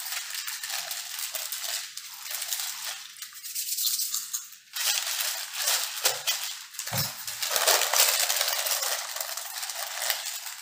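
Small foil Lay's potato chip packets crinkling and rustling as they are torn open and handled, with a dense crackle that stops briefly just under halfway through.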